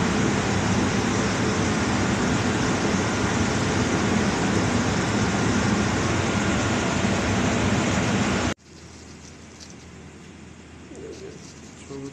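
Loud steady machine noise, a mechanical hum and hiss, that cuts off abruptly about eight and a half seconds in, leaving much quieter room tone.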